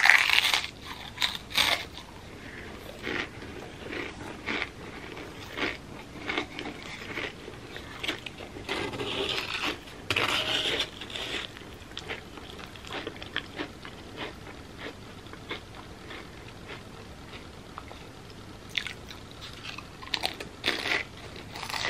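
Potato crisps crunching and being chewed with a creamy pimento cheese dip, in clusters of crisp bites at the start, around ten seconds in and again near the end.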